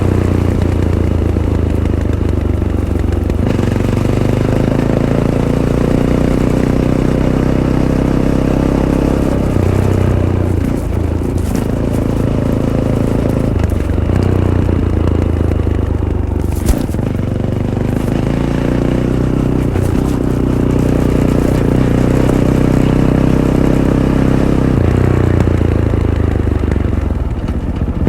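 Fantic Caballero 500's single-cylinder engine, breathing through its stock Arrow exhaust, running under way off-road, its pitch stepping up and down repeatedly with throttle and gear changes. A single sharp click comes about two-thirds of the way through.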